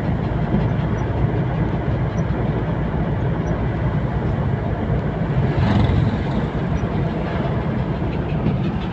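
A vehicle running, with a steady low rumble and a slight swell about six seconds in.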